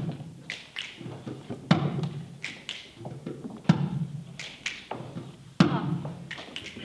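Rhythmic percussion: a heavy thump about every two seconds with lighter taps in between, in a steady beat.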